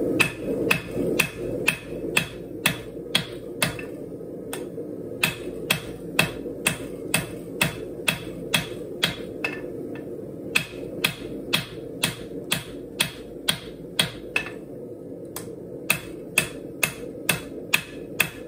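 Hand hammer striking a red-hot steel knife blade on an anvil, hammering in the bevels: about two blows a second, with two short pauses, over a steady hum.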